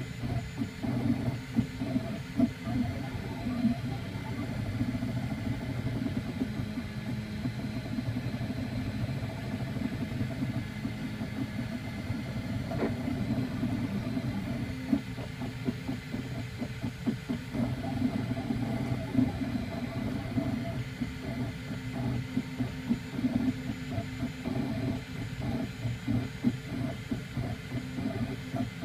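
3D printer at work: its stepper motors whir and buzz in short, constantly shifting runs as the print head traces each layer of the tire, with a steady hum beneath.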